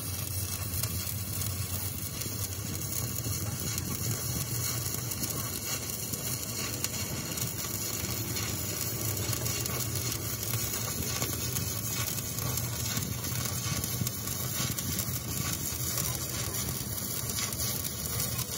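Stick (shielded metal arc) welding on a steel excavator chassis: the electrode arc burning steadily as a continuous crackling hiss, with a low steady hum underneath.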